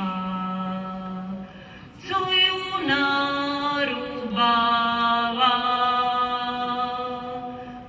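Unaccompanied voice singing a slow melody in long held notes, with a short break about two seconds in.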